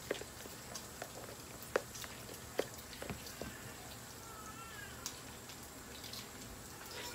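Bacon frying in a pot, the fat crackling and popping in irregular sharp snaps over a low sizzle. A faint short high-pitched call comes about four seconds in.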